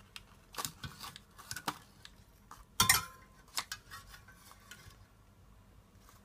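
Metal clinks and scrapes on an oven's wire rack as whole baked tilapia are turned over with a metal spatula and by hand: a few scattered clicks, the loudest about three seconds in, then only faint handling sounds.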